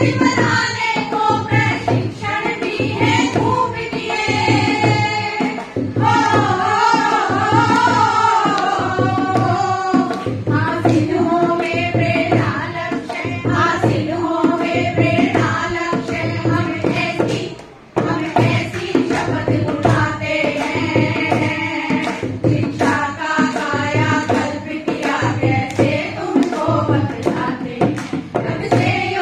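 Group of women singing a song together over a microphone, with a hand drum keeping a steady beat. The music drops out for a moment about two-thirds of the way through, then goes on.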